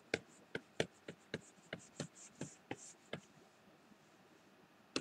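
Stylus tapping and brushing on a graphics tablet: a faint run of light clicks, about four a second, with a few soft scratchy swishes, stopping about three seconds in.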